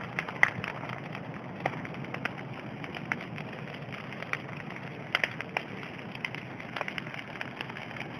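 Large wood bonfire burning: a steady hiss with irregular sharp crackles and pops from the burning wood, the loudest pop just under half a second in and a quick cluster of them about five seconds in.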